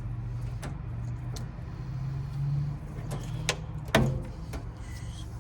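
Tools and metal furnace parts being handled during disassembly, giving a few scattered clicks and knocks; the loudest comes about four seconds in with a short metallic ring. A low hum sits underneath.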